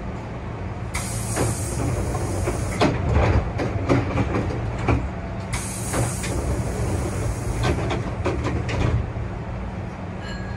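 Hankyu 8000 series electric train running at speed, heard from the driver's cab: a steady low running rumble with irregular clicks of the wheels over rail joints. Two spells of loud hiss come in, one about a second in and another in the middle.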